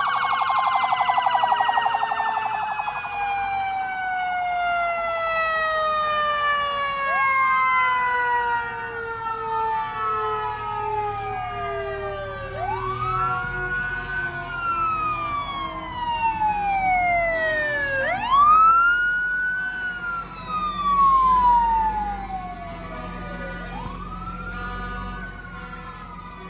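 Police car siren. It opens with a fast yelp, then winds down in one long falling tone, then wails in four rise-and-fall cycles, each a quick rise and a slow fall, about five and a half seconds apart.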